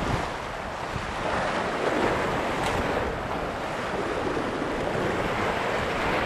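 Sea surf washing onto the shore in slow swells, with wind rumbling on the microphone.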